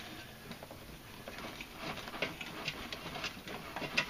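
Scattered light clicks and taps of metal tools and parts being handled on a riding-mower deck spindle pulley.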